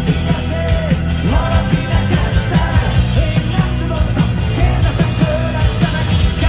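Live rock band playing through the PA: drums, guitars and bass under a sung lead vocal, heard from the crowd.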